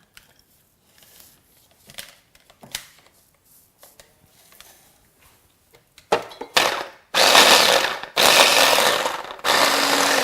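Small electric grinder chopping up citrus fruit, run in several short bursts that start about six seconds in, after a few light clicks of handling. The small amount of fruit catches poorly in the blades, so the grinder is pulsed on and off.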